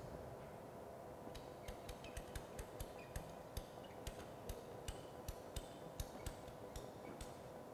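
Handheld ratchet plastic pipe cutter biting through a PP-R water pipe: a run of sharp clicks, about three to four a second, as the handles are squeezed. The clicks start a little over a second in and stop near the end.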